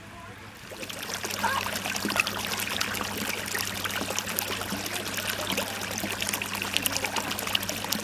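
Water pouring from a pipe outlet into a koi pond, splashing steadily on the surface; it grows louder about a second in.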